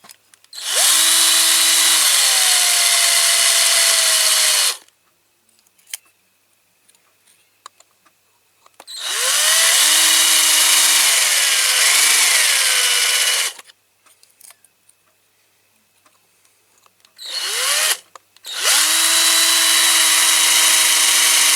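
Electric drill drilling into a diecast model car, run in three bursts of about four seconds each with a short blip just before the last. Each burst spins up to a steady whine and cuts off sharply.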